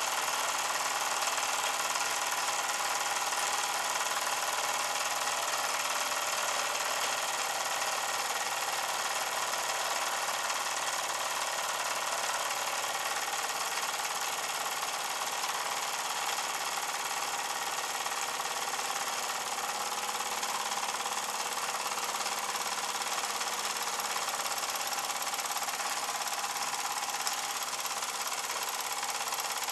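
Wilesco D16 toy steam engine running steadily, a fast, even mechanical clatter from the piston and flywheel.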